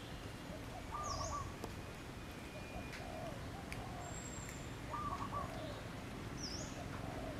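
Wild birds calling: a short phrase of notes, each ending in a sharp high note, comes twice about four seconds apart, with softer scattered chirps between.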